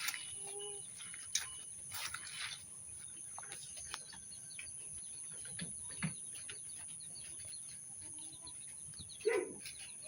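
Goats feeding on cut grass fodder: scattered rustling and crunching of leaves and stems, with a few faint short bird calls and a steady high-pitched whine in the background.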